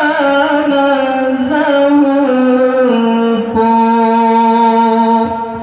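Male Quran reciter chanting in a high voice. An ornamented, melismatic line gives way about three and a half seconds in to a long held note, which trails off near the end.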